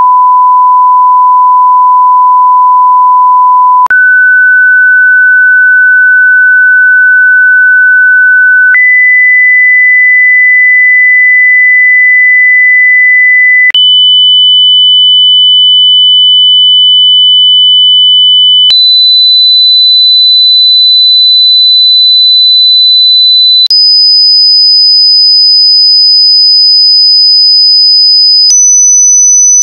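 Pure sine test tones of a hearing test, played one at a time and each held steady for about five seconds, stepping up in pitch from about 1,000 Hz through 1,500, 2,000, 3,000, 4,000 and 5,000 Hz to about 6,000 Hz near the end. A brief click marks each change of tone.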